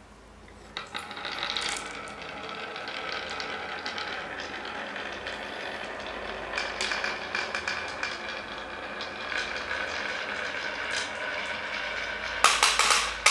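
A row of small green balls rolling and rattling down a wooden zigzag slope marble run, knocking against the groove walls and each other. It is a steady clattering that starts about a second in, with a burst of louder, sharper clacks near the end.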